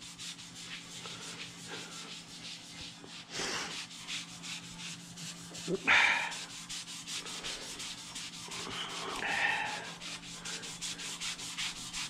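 A cloth rubbing Autosol metal polish over a chrome car bumper, in quick back-and-forth strokes, with a louder scuff about six seconds in. A steady low hum runs underneath.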